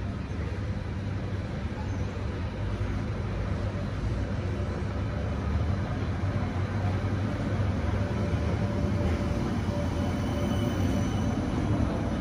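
Light rail tram approaching and running in alongside the platform. A steady low hum of motors and wheels on rails grows a little louder as it draws level, and a faint whine comes in during the second half.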